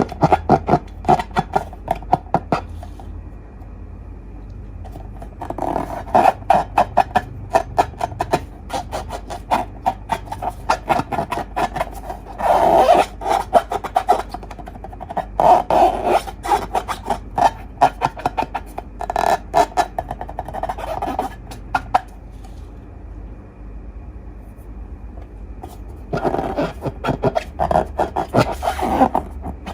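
Slime being squished and worked by hand, with sticky crackling and popping clicks in bouts of a few seconds separated by quieter pauses.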